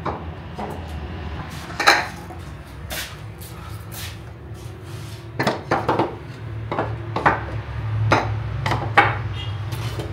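Green-glazed clay dizi pots knocking and clinking against each other and the steel tray as they are set down and shifted one at a time. The knocks come at an irregular pace over a low, steady hum.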